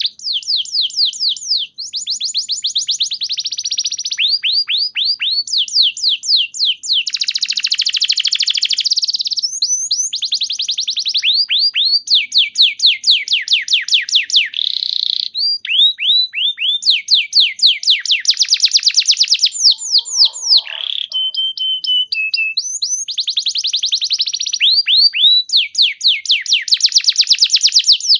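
Domestic canary singing a continuous song of fast trills, each a rapid run of repeated falling notes, changing from one trill to the next every second or two, with a single held whistled note about three quarters of the way through.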